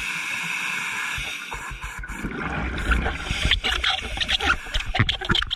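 Scuba diver's regulator breathing heard underwater: a steady hiss of an inhale, then crackling, gurgling exhaled bubbles from about two seconds in.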